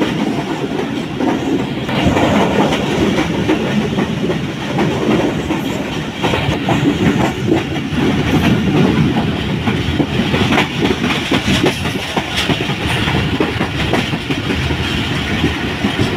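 Moving passenger train running along the track: a steady rumble with the wheels clicking and clattering over the rail joints.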